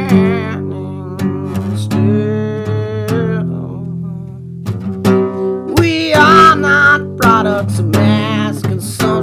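Background music: a song with strummed acoustic guitar playing a passage without sung words, a wavering lead melody rising over it in the middle.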